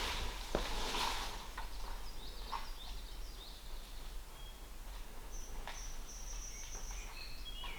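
Small birds chirping in short, high calls, with one held high note a little past the middle. A brief scuffing noise comes near the start.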